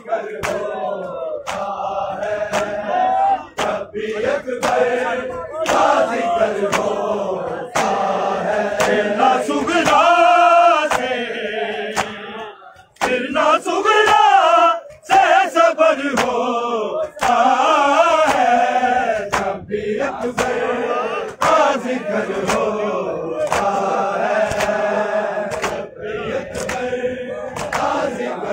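Noha chanted by a group of male voices with a crowd joining in, over rhythmic chest-beating (matam), about one beat a second.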